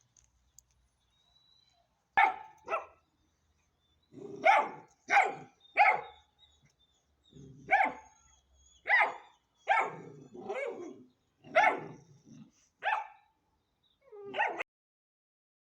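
Ten-week-old Hanoverian scent hound puppy barking: about a dozen short barks, some in quick pairs, starting about two seconds in.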